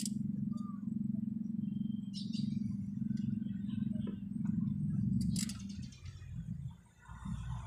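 A steady low mechanical hum, like a motor or engine running, that falters and fades about six seconds in, with a couple of sharp metallic clicks, one at the start and one shortly before the hum drops away.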